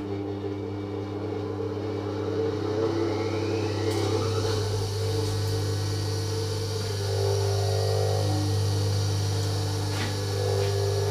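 Vintage GMF electric bench grinder running steadily just after being switched on, a steady motor hum with a whir.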